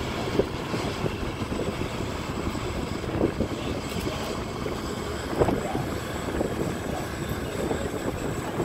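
Steady low rumble of a towboat pushing a passenger vessel along the river, its engine and churning wake mixed with wind buffeting the microphone in a few brief gusts.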